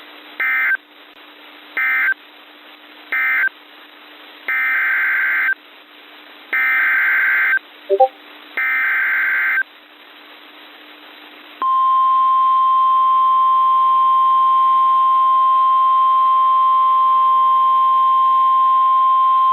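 NOAA Weather Radio Emergency Alert System tones. First come three short warbling data bursts, the end-of-message code closing the previous bulletin. Then three longer bursts of the same screechy digital signal, the SAME header announcing a new alert, with a brief chirp between the second and third. About halfway through, the steady 1050 Hz warning alarm tone starts and holds unbroken.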